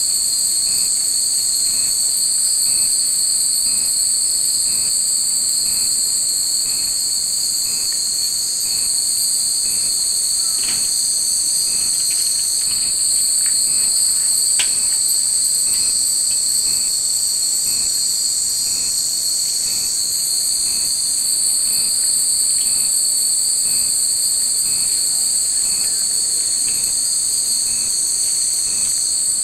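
Cicadas shrilling in a loud, unbroken high-pitched drone, with a fainter pulse repeating about once a second beneath it. Two faint brief clinks come near the middle.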